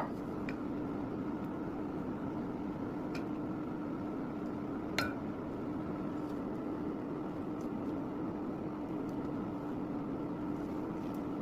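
Steady hum of a running kitchen appliance, with a low held tone and a fainter higher one, and a few light clinks on the pot, the sharpest about five seconds in.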